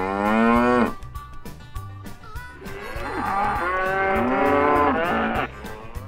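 Cattle mooing: one long moo rising in pitch ends about a second in, and a second moo lasting nearly three seconds follows after a short pause.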